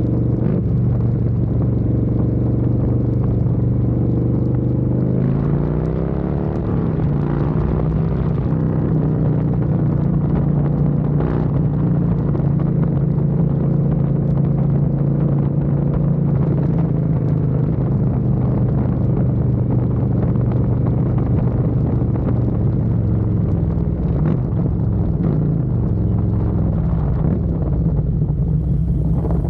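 2024 Harley-Davidson Road Glide's Milwaukee-Eight 117 V-twin running through a Thumper Moto 2-into-1 stainless steel exhaust, with a Screaming Eagle Stage 2 cam. The engine speed rises about five seconds in, holds steady, and eases back down near the end.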